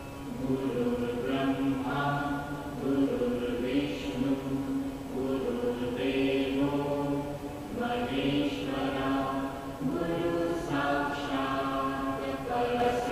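Background music of several voices chanting together in phrases about two seconds long, over a low steady drone.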